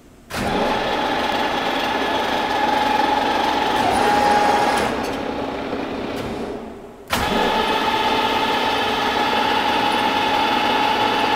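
WMW FU 400x1600 milling machine's drive motor and spindle gearbox switched on and running unloaded with a steady gear whine. About five seconds in it is switched off and begins to run down, then it starts again suddenly about seven seconds in.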